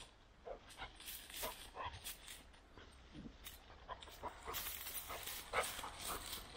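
Pachón Navarro hunting dog working through dry grass, breathing in quick short puffs as it tracks a running wounded quail's scent, with the rustle of dry stalks, heavier about two thirds of the way in.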